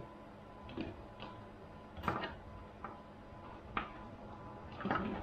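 Scattered light clicks and knocks as a battery pack of 18650 cells in holders, with its wiring, is pushed and worked by hand into a tight-fitting plastic battery box, the loudest knock about two seconds in.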